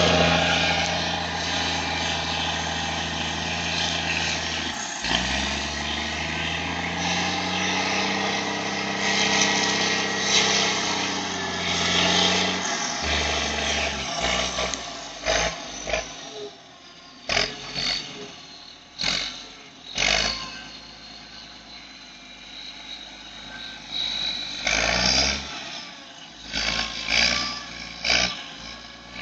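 ULT 220 wheel loader's turbocharged diesel engine running under the operator's throttle, with the turbo whistling. The engine note dips about five seconds in, climbs and falls back, then comes in a string of short revs, the whistle rising and falling with each.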